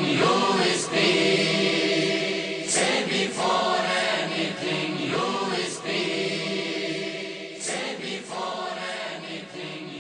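A vocal choir singing a slow devotional chant, slowly growing quieter toward the end.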